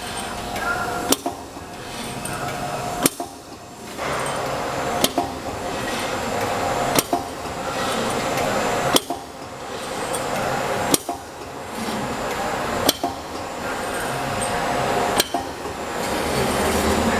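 Automatic pipe hole-punching machine at work: a sharp punch stroke about every two seconds over the machine's steady running hum.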